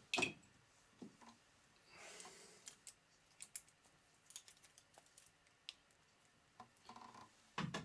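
Faint scattered clicks and small knocks of music gear being handled and rearranged, with a thud just after the start, a brief soft brushing noise about two seconds in, and a louder knock near the end.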